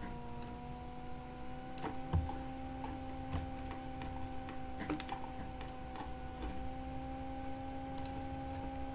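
A steady hum with a few irregular sharp clicks over it.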